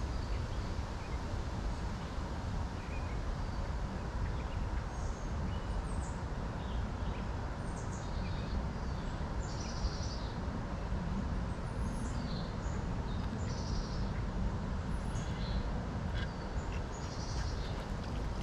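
Small birds chirping and calling now and then over a steady low rumble.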